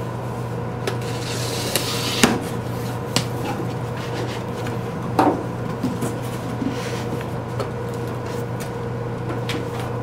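Cardboard shipping carton being opened by hand: the tape slit with a small knife, then the flaps pulled open and rubbed, with rustling and a scatter of sharp taps and knocks. A steady low hum runs underneath.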